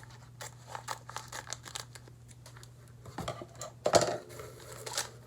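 Plastic packaging being crinkled and torn open by hand, in scattered short rustles and clicks, with one louder burst about four seconds in.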